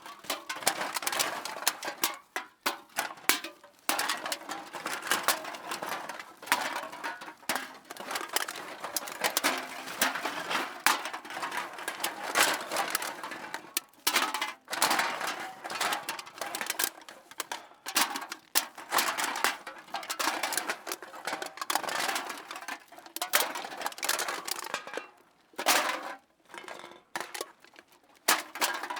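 Cans being put into a bag, an irregular clatter of cans knocking and clinking against each other, with a few short pauses.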